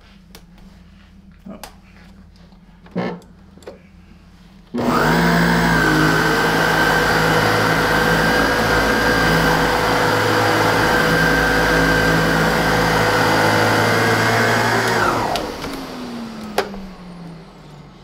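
SEBO Air Belt C3 canister vacuum with its ET-C powerhead switched on for a test run after reassembly: a few light clicks, then about five seconds in the motor starts suddenly with a rising whine and runs loud and steady for about ten seconds. It is then switched off and winds down with a falling whine.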